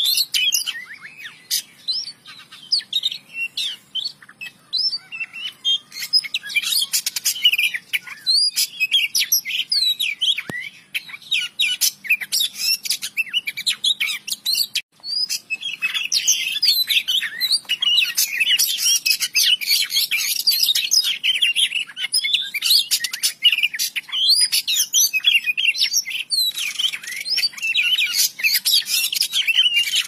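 Oriental magpie-robin (kacer) singing: a fast, varied run of chirps and whistles, with short gaps in the first half and almost unbroken in the second.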